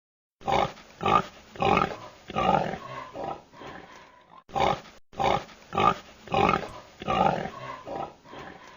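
A domestic pig grunting in a rapid run of short grunts, about one to two a second, with a brief pause midway.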